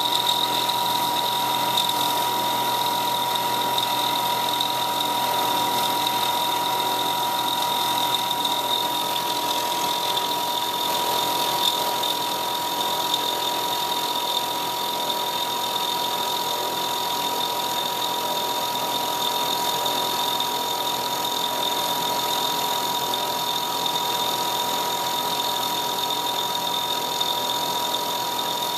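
CNC milling machine spindle running steadily while a small end mill thread-mills a four-start worm into the blank, under a spray of coolant mist. A constant whine with an even hiss over it.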